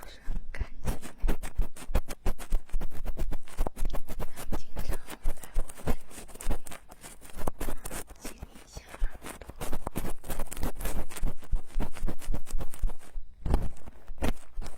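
Ear-cleaning tools scraping and picking inside a silicone ear right against binaural microphones: a fast, continuous run of crackling scratches, with a short pause about 13 seconds in.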